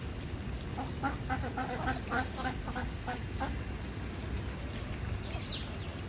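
Muscovy duck calling: a quick series of about a dozen short quacks, roughly four a second, from about one second in until about three and a half seconds in.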